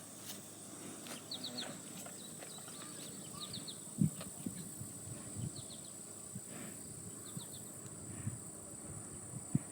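Quiet outdoor insect sound: a steady high drone with short chirps in groups of three every couple of seconds, and a few soft low thumps, the loudest about four seconds in and near the end.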